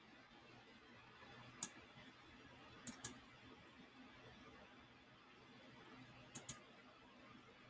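Computer mouse clicking over faint room hiss: one click about one and a half seconds in, then a quick pair of clicks near three seconds and another pair about six and a half seconds in.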